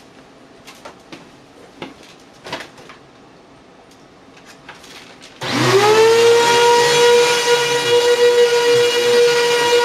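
A few light clicks and knocks, then about five seconds in a vacuum cleaner is switched on: its motor spins up in a quick rising whine and settles into a steady, loud whine over a rush of air.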